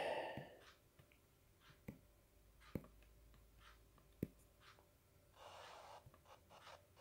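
Faint taps of a stylus on a tablet screen, then a brief scratch as the stylus draws a line.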